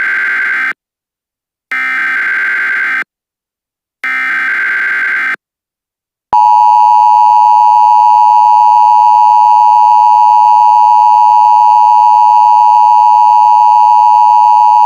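Emergency Alert System SAME header: three bursts of digital data tones about a second apart, the first already under way. About six seconds in comes the EAS attention signal, a loud, steady two-tone alert tone.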